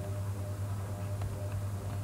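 Room tone with a steady low hum, and one faint tick about a second in.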